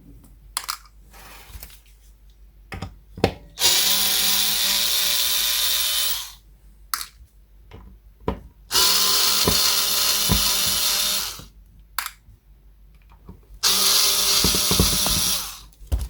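Cordless drill-driver working the pickguard screws of a Stratocaster, running with a whine in three bursts of two to three seconds each, with small clicks and knocks of handling between them.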